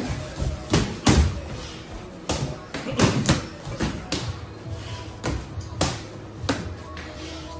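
Boxing gloves landing in sparring: a string of irregular padded thuds and slaps, over background music.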